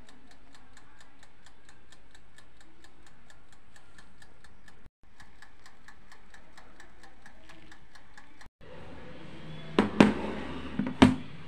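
Mechanical timer of a small electric oven ticking steadily, about five ticks a second, while the timer runs down on the baking. Near the end come two loud clanks as the metal baking tray is handled and taken out.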